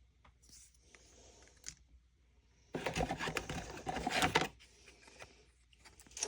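Plastic packaging crinkling and rustling as it is handled, loudest in a dense crackling stretch of about two seconds in the middle, with faint clicks and rustles before and after.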